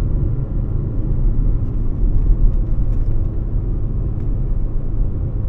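Toyota RAV4 on the move: a steady, low road and engine rumble.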